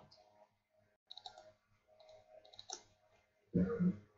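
Computer keyboard keys clicking faintly in short bursts as code is typed, with a louder, duller knock about three and a half seconds in.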